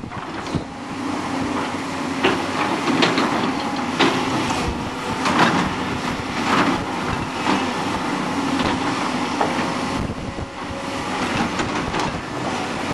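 Blustery wind buffeting the microphone, making a rough, irregular crackling, over the steady running of tracked excavators' diesel engines working in the cutting.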